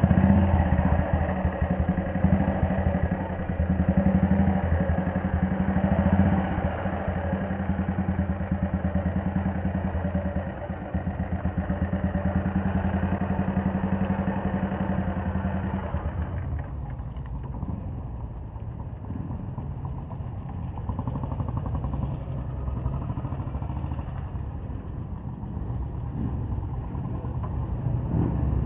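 Single-cylinder engine of a 1939 Red Panther Model 40 motorcycle running as the bike rides slowly. About sixteen seconds in the sound drops to a quieter, lower engine sound of motorcycles idling.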